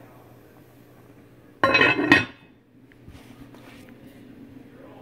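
An aluminium lid is set down onto an aluminium cooking pot about a second and a half in: a metal clatter with a ringing clink, then a second clink half a second later as it settles.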